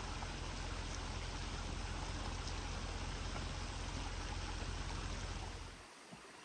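Steady rush of a creek's running water with a low rumble underneath; near the end it drops away to a much quieter trickle.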